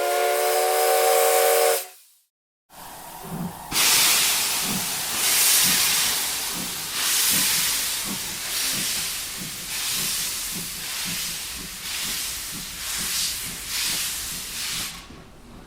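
Steam locomotive sounding a chime whistle for about two seconds, a chord of several tones, cut off sharply. After a brief gap the locomotive's exhaust chuffs, regular bursts of steam about every three-quarters of a second, over a steady hiss, fading away near the end.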